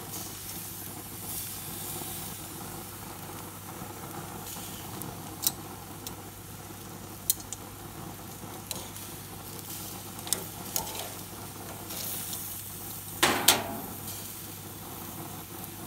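Tiger prawns sizzling on the hot grates of a gas barbecue grill: a steady hiss with scattered sharp pops, and a short clatter of metal tongs against the grate near the end as the prawns are moved.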